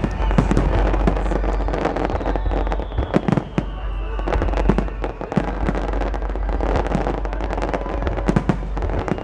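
Aerial fireworks display going off in a dense, continuous run of bangs and crackles, with a few louder booms among them.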